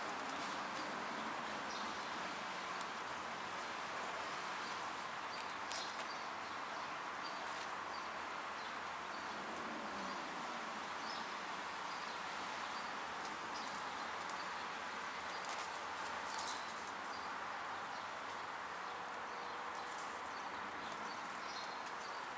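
Kittens at play: scattered light taps and scuffs of small paws over a steady background hiss.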